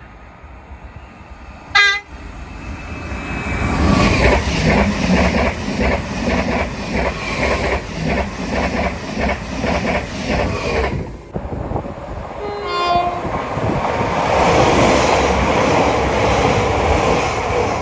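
Train horn giving a brief toot, then a train passing close by with a rhythmic clatter of wheels over the rail joints, about two beats a second. Later, a two-tone horn sounds over the continuing rumble.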